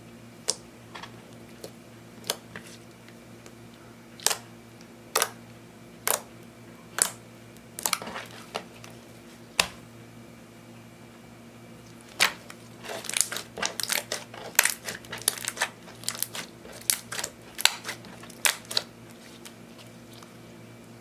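Clear slime mixed with eyeshadow being kneaded and pressed by hand, giving sharp pops and clicks. They come singly, about one a second, at first; past the halfway point they come thick and fast in quick clusters.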